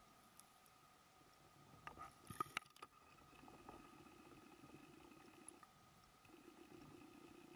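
Very faint underwater sound heard through a camera's housing: a faint steady whine, a few sharp clicks about two and a half seconds in, then two spells of low bubbling in the second half, typical of a scuba diver's exhaled bubbles.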